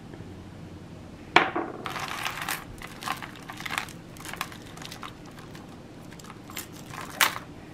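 Costume jewelry and beads clinking and rattling as a pile is sorted by hand, with a sharper clack about a second and a half in and another near the end.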